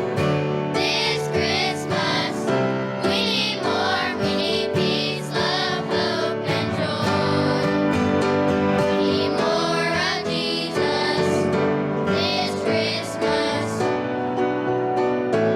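Children's choir singing a Christmas song with instrumental accompaniment.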